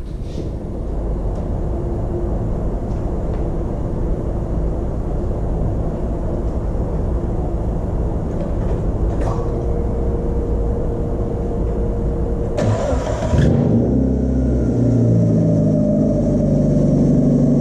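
Mazda MX-5's replacement four-cylinder engine running steadily, freshly fitted and sounding healthy. About thirteen seconds in there is a short rushing burst, after which the engine runs louder, its pitch rising and falling as it is revved.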